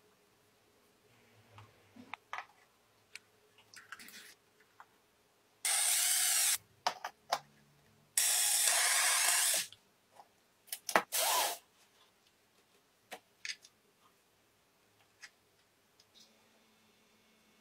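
Two bursts of steady spraying hiss, the first about a second long and the second about a second and a half, with scattered light clicks and knocks around them.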